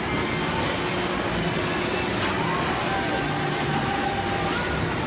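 Busy amusement-arcade din: a steady wash of crowd noise with short electronic tones from game machines sounding at different pitches, and faint voices.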